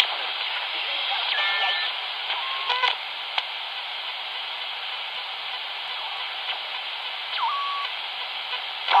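Magnum 1012 handheld HF transceiver's speaker hissing with 11-metre band static as it is tuned across frequencies, with a few brief whistles as signals slide past, one gliding down near the end.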